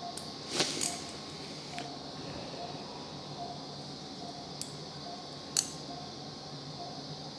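Metal surgical instruments clicking and clinking: a quick cluster about half a second in and a single sharp click a little after five seconds, with lighter ticks between. Underneath, a patient monitor's faint short pulse beep repeats about every 0.8 s over a steady hum.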